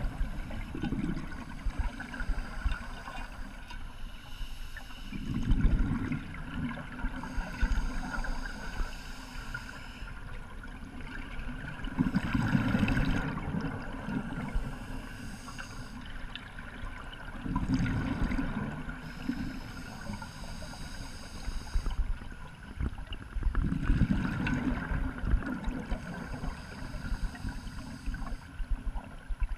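Scuba diver breathing through an open-circuit regulator underwater. A bubbly exhalation rumble comes about every six seconds, with the hiss of the demand valve on each inhale in between.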